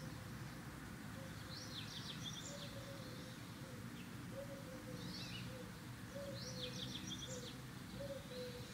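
Small bird chirping in short repeated bursts of quick high notes, faint, over steady low background noise.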